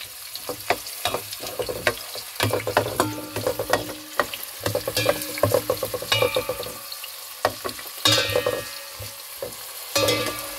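Chopped onion and garlic sizzling in hot olive oil in a stainless steel pot, stirred with a spoon that knocks and scrapes against the pot many times.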